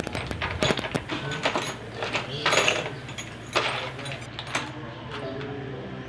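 Metal clinks and knocks of tools and screws being handled while a gearbox is screwed onto a twin-tub washing machine's wash tub, many in the first four seconds and sparser after. A low steady hum lies under them.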